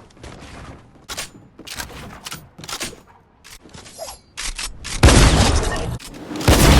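Shotgun sounds: a run of sharp clicks and cracks, then two loud blasts about a second and a half apart.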